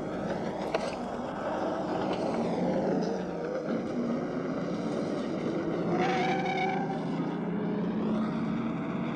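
Motor vehicles speeding past in a continuous roar, their engine tones sliding in pitch as they go by, in a film soundtrack.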